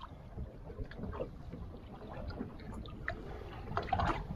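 Low rumble of wind and water around a drifting fishing boat, with scattered light clicks and knocks, a few louder ones near the end.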